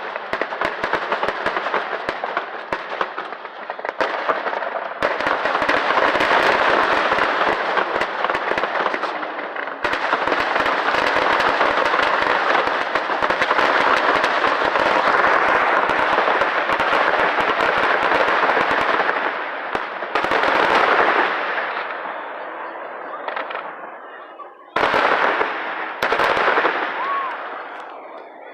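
Fireworks display: a dense run of rapid bangs and crackling that stops and restarts abruptly several times, thinning out near the end.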